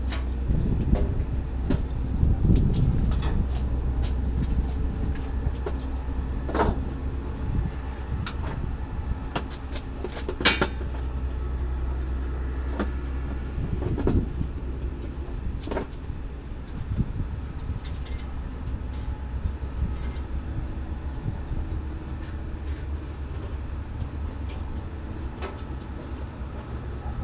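Vehicle engine idling steadily, with occasional short knocks and clicks.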